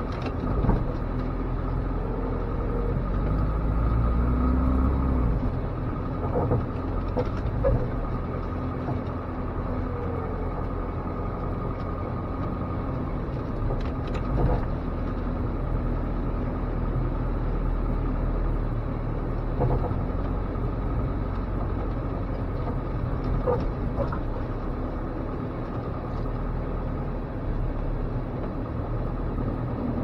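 Engine of a 1987 Dodge Raider running under load, heard from inside the cab while it plows snow, swelling louder about four seconds in. Scattered sharp clunks and knocks from the truck and its plow.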